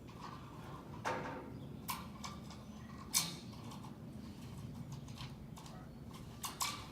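A handful of short, sharp clicks and knocks, the loudest about three seconds in, from installers fitting a solar panel onto a ground-mount rack, over a steady low hum.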